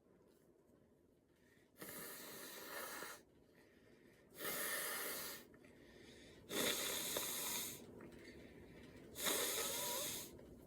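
A person blowing their nose into a tissue four times. Each blow is a breathy rush lasting about a second, with short pauses between.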